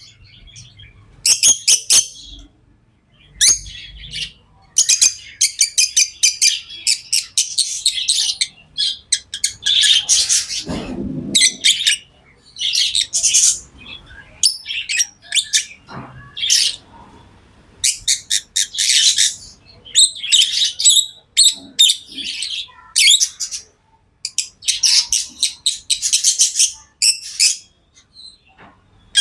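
Pet lovebirds chirping: rapid, high-pitched chirps in bursts lasting one to several seconds, with short pauses between.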